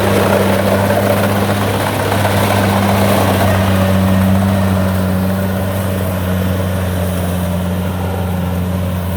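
Kubota rice combine harvesters running steadily while harvesting: a loud, even diesel engine drone with a deep hum that eases slightly about halfway through.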